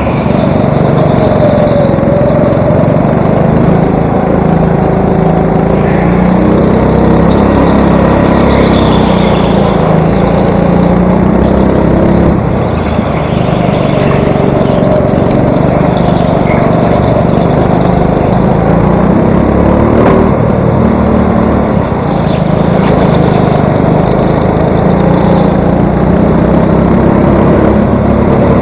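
Indoor go-kart's small engine running under racing load, its note rising and falling as the kart accelerates and slows through the corners, with other karts' engines close by.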